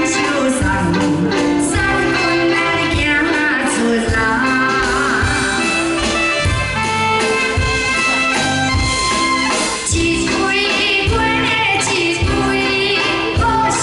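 A woman singing a Chinese song live into a microphone over a live band with a steady beat, heard through the stage PA.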